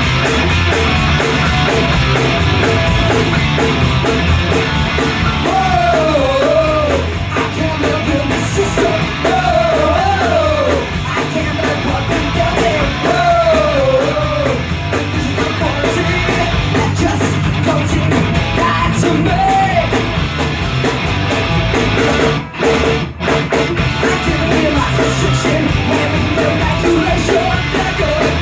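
Live punk rock band playing at full volume: distorted electric guitars, bass and drums, with bending melodic lines in the middle part and two short stops in the music about 22 to 23 seconds in.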